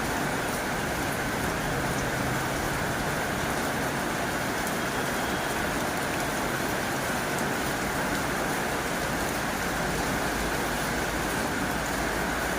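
Heavy rain drumming steadily on a tin roof, a dense, unbroken hiss of drops on sheet metal.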